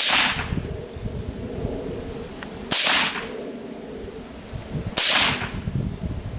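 .22 LR rifle firing three single shots, sharp cracks about two and a half seconds apart, with a low rumble between them.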